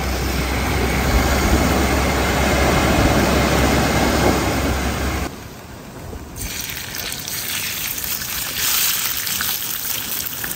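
Wind buffeting the microphone over surf noise, with a low rumble, for about five seconds. It cuts off suddenly, and about a second later fish fillets start sizzling in a pan over campfire coals, a steady hiss that rises a little near the end.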